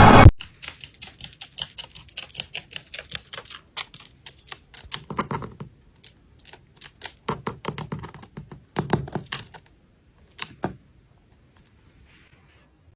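Rapid, irregular light clicks and taps like keys being pressed, dense at first, then sparser, with a few louder knocks about five and nine seconds in, stopping a couple of seconds before the end.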